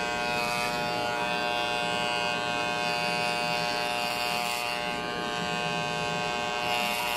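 Corded electric hair clippers running with a steady hum while being pushed over the scalp to shave off hair.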